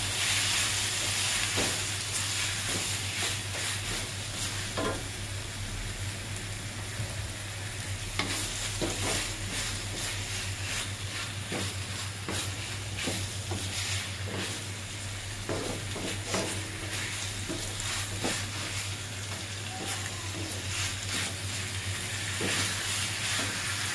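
Sambal, cockles and petai beans sizzling in a wok while a wooden spatula stirs them, with frequent short scrapes and knocks of the spatula against the pan.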